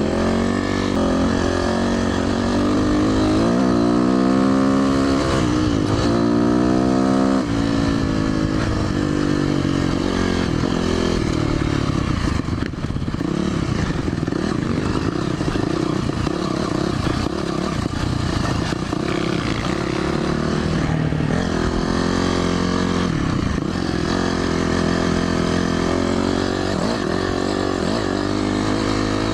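Dirt bike engine running under load, revving up and down: its pitch climbs and drops several times in the first seven seconds or so, then holds steadier with smaller rises and falls.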